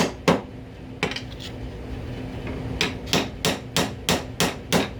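A hammer driving a nail into wood, with the nail being driven all the way through. It strikes twice, lands a lighter tap about a second in, pauses, then gives a quick run of about seven even blows, roughly three a second.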